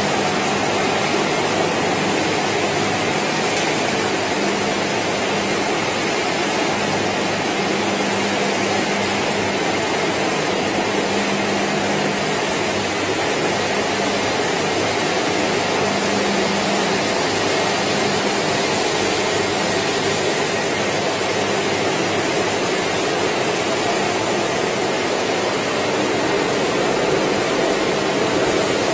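Banana chip processing line machinery running: a constant rushing din from motors, conveyors and vibrating feeders, with a faint low hum that comes and goes.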